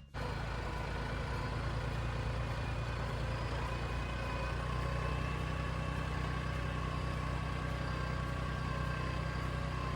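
Engine running steadily at an even speed, with a low hum and a faint, slowly falling whine above it.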